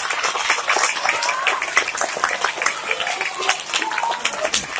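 Audience applauding: many hands clapping at once, with voices faintly mixed in.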